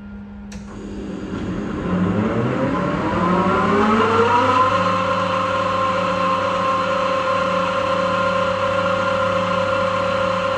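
Electric motor of a homemade belt grinder starting up: its whine rises in pitch for about four seconds, then the machine runs steadily at full speed with a low hum underneath.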